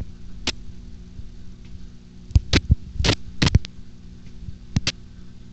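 A steady low electrical hum, as from aquarium equipment, with a handful of sharp clicks or taps, most of them bunched together between about two and a half and three and a half seconds in.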